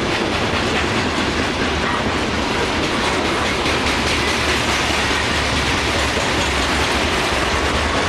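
Covered hopper cars of a CSX phosphate freight train rolling past: a steady, loud rumble of steel wheels on rail, with repeated clicking as the wheels cross rail joints.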